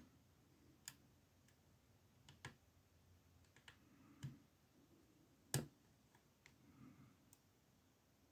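Faint, scattered clicks of a lock pick and tension wrench working in a small 20 mm Amtech padlock, about half a dozen spread irregularly, with one louder click a little past halfway.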